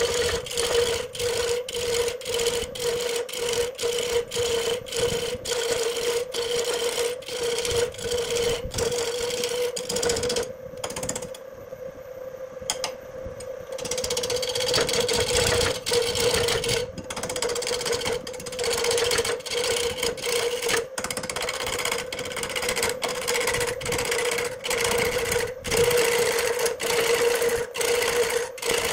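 Wood lathe spinning a large wood blank while a gouge cuts it: a steady hum under a rough scraping cutting noise. The cutting noise drops out for a few seconds about ten seconds in, leaving the hum, then comes back.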